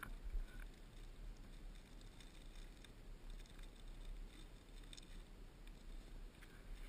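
Faint steady low rumble of wind on the microphone, with a few soft clicks.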